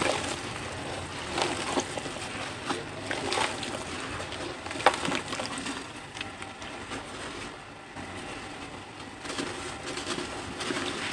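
Dry cement chunks crumbled by hand: gritty crunching and the hiss of powder and grit pouring onto a clay pot and into the water around it, with sharp crackles as pieces snap, the loudest about halfway through. It quietens for a moment, then picks up again as a fresh block is broken.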